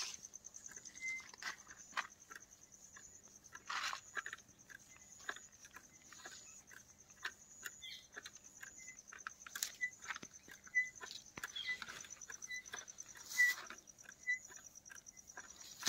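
Faint clicking and rubbing of a water-level sounder's measuring tape being fed by hand down a borewell pipe, over a steady high-pitched pulsing buzz. Short, faint high beeps repeat about twice a second in the second half.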